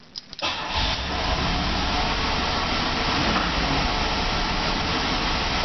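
The carbureted 3.0-litre V6 of a 1984 Oldsmobile Cutlass Ciera starts about half a second in and runs steadily, its alternator belt freshly tightened to stop it squealing.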